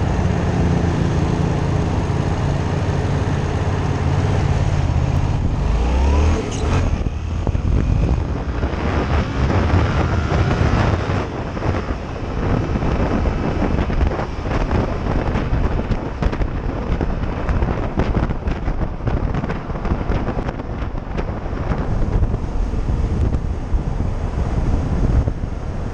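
Yamaha MT-07's parallel-twin engine idling steadily, then revving up about six seconds in as the bike pulls away hard in second gear to over 100 km/h. After that, wind noise on the microphone mostly covers the engine at highway speed.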